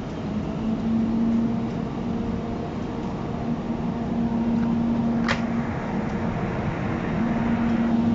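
JR EF64 1000-series electric locomotive pulling its train away from the platform: a steady low hum that drops out for a second or so past the middle and comes back, with one sharp click about five seconds in.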